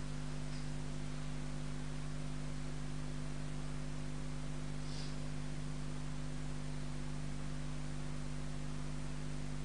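Steady electrical mains hum with an even hiss from the microphone and sound system, unchanging throughout. Twice a faint, brief high hiss, about half a second and five seconds in.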